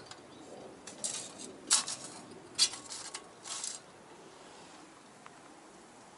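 Light metal clinking and rattling, a handful of sharp clinks over about three seconds, the two loudest about two and three seconds in, then it stops.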